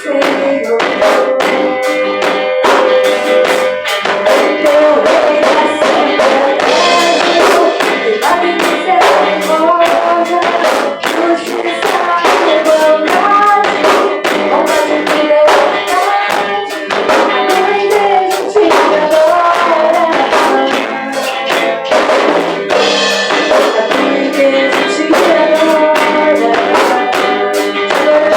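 A live worship band playing a song: drum kit keeping a steady beat, guitar and tambourine under a melody line.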